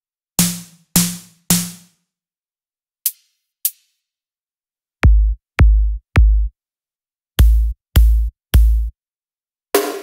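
Synthesized drum presets of the Viper software synth, each struck a few times with gaps between: three hard snare hits, two short faint clicks, then three deep psy-trance kick drums and three more kicks, with another snare hit near the end.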